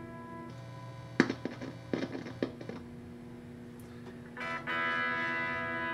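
Guitar test signal heard through an audio signal tracer probing the plate of the V4A preamp valve in a Marshall 4210 (2205-circuit) valve combo: a faint steady tone with hum, a few sharp clicks about a second in, then a louder held tone near the end. Signal is almost gone at this plate, which the tech suspects is down to the V4 valve.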